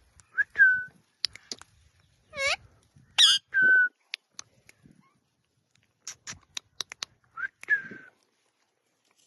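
Indian ringneck parakeet whistling and calling: three short whistles that rise and then hold one pitch, two rising calls in between, and a run of sharp clicks after the middle.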